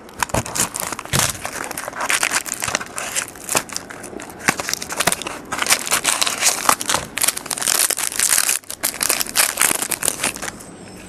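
Plastic trading-card pack wrapping crinkling and crackling steadily as it is handled and opened by hand, easing off near the end.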